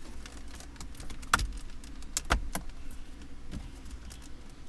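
Hard plastic dashboard trim of a 2013 Ford Escape clicking and knocking as the center console piece around the shifter is worked loose and slid out: a handful of sharp clicks, the loudest over a second in and a cluster a little past two seconds in.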